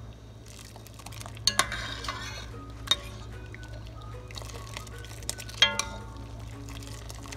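Metal ladle stirring a thin sauce in an enamelled pot, clinking sharply against the pot a few times, loudest about 1.5 s, 3 s and 5.5 s in.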